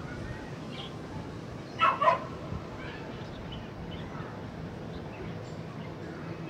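A dog barks twice in quick succession about two seconds in, over a steady low outdoor background rumble.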